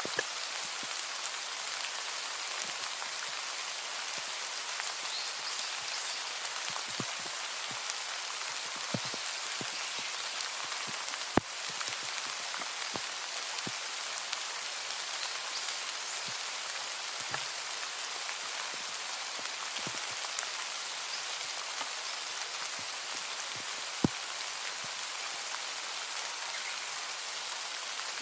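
Steady rain hissing, with scattered single drops landing close by. Two drops are sharper and louder than the rest, one near the middle and one later on.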